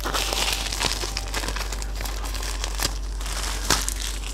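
Thick bubble wrap being crinkled and pulled apart by hand, a run of crackling rustles with a sharper crack near the end.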